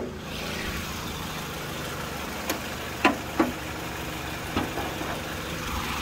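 Toyota Tarago engine idling steadily with its new air-conditioning compressor running quietly, while the bonnet is unlatched and raised: a sharp click at the start, then a few light knocks between about two and a half and four and a half seconds in.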